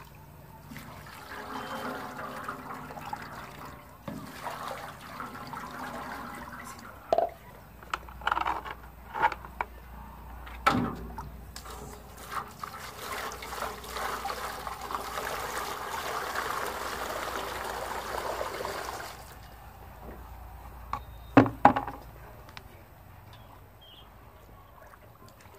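Water poured over a compressed coco peat block in a steel tub, splashing and gushing in two long pours. A few sharp knocks fall between and after the pours, the loudest a double knock near the end.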